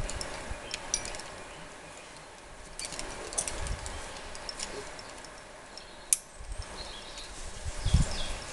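Scattered light clicks and metallic clinks of climbing hardware, with one sharp click about six seconds in and a few low thumps on the microphone.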